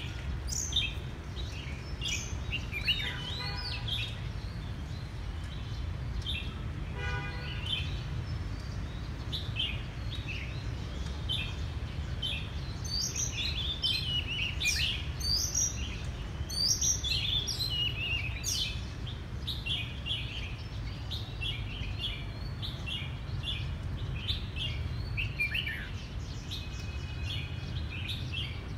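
Oriental magpie-robin singing a steady stream of varied whistled chirps and trills. A harsher call comes about three seconds in and again around seven seconds, over a steady low rumble.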